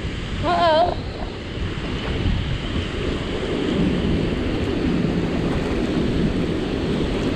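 Wind buffeting the microphone over the steady rush of water pouring from a dam spillway. A brief wavering, whistle-like pitched sound comes about half a second in.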